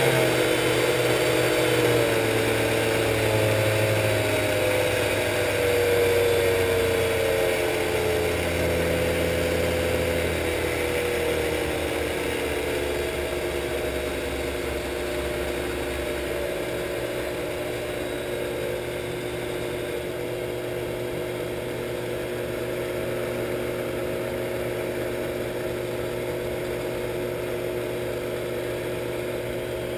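Shopsmith 10ER headstock, belt-driven by a Leeson 3/4 HP DC motor, running without load as its speed is turned down from top speed. Its whine falls steadily in pitch for about the first eighteen seconds, then holds steady.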